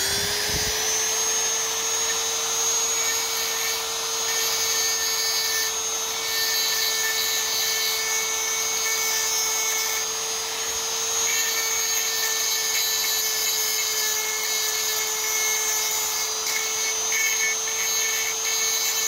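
High-speed rotary tool with a small mounted grinding stone, running at a steady high whine while it grinds the raised staking out of a steel U-joint yoke's bearing-cap bore.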